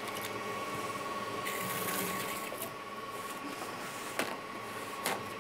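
Tap water running into a stainless steel sink while hands are washed under it, a steady hiss.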